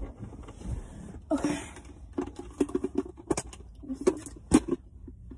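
Hands handling a phone and its small plastic accessories: a run of light clicks and taps with a brief rustle about a second in and one sharper click near the end.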